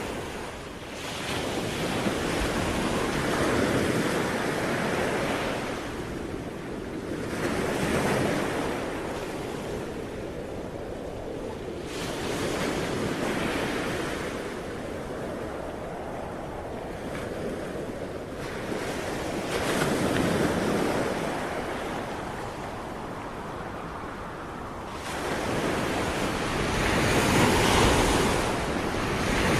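Ocean waves breaking and washing on the shore, the surf swelling and falling back every few seconds, with some wind noise.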